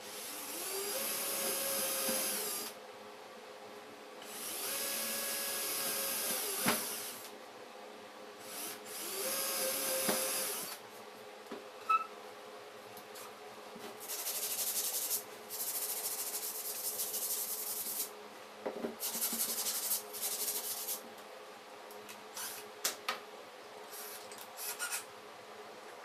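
Cordless drill boring holes into plywood in three runs of two or three seconds each, its motor giving a steady whine. About fourteen seconds in, several seconds of rubbing against the wood follow, in three stretches.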